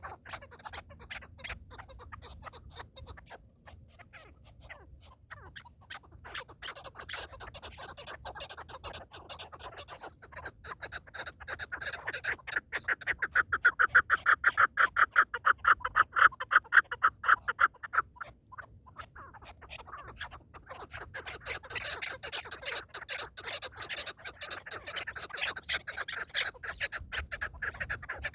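Partridge calling: a long run of rapid, repeated clucking notes. It grows louder to a peak about halfway through, breaks off briefly, then carries on more softly.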